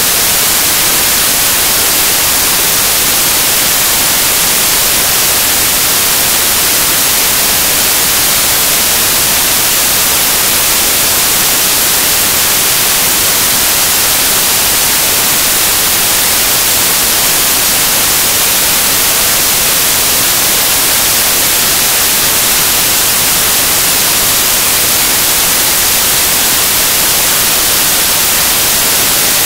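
Loud, steady static hiss like white noise, even and unbroken, brighter toward the high end: the sound of a faulty or dropped-out audio track rather than anything in the room.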